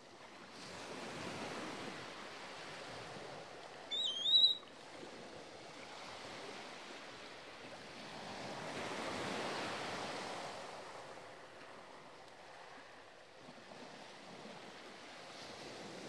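Surf washing on a beach, swelling and easing, with one short wavering whistled bird call about four seconds in.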